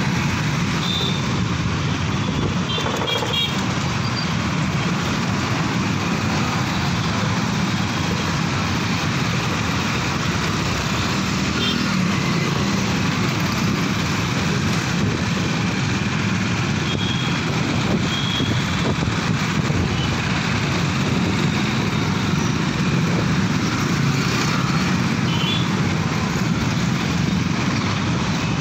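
Steady road traffic noise of motorcycles, scooters and an auto-rickshaw, heard from a vehicle moving with them: a low engine hum and tyre and wind rush that holds level throughout.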